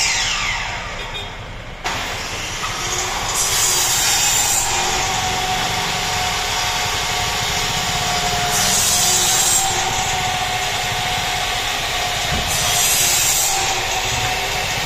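Electric power saw used for cutting aluminium sections. Its motor winds down in falling pitch, starts again abruptly about two seconds in, and then runs steadily with three harsher stretches where it cuts.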